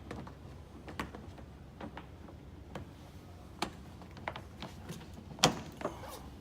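Scattered light clicks and knocks of hands handling equipment, about a dozen irregular taps with the loudest about five and a half seconds in.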